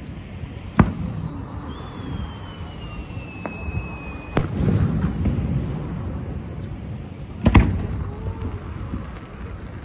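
Aerial fireworks shells bursting over water: a sharp bang about a second in, then a high whistle sliding slowly down in pitch for about two and a half seconds that ends in a second bang, and a louder bang near the end. Each bang is followed by a low rumble.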